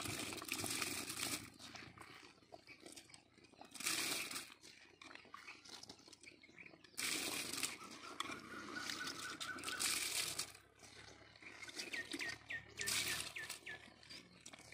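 Soaked basmati rice being tipped by the handful into a pot of boiling biryani water, each pour a short splashing patter of grains landing in the liquid, about five times.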